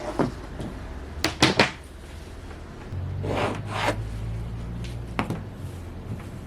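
Handling sounds: a quick cluster of sharp clicks, two rustling swishes, and another click near the end. A low steady hum runs for a couple of seconds in the middle.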